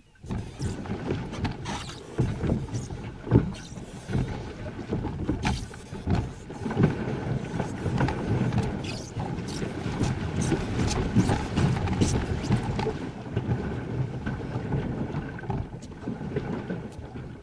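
A kayak moving on the water: a low, rumbling noise with frequent irregular knocks, and wind on the microphone.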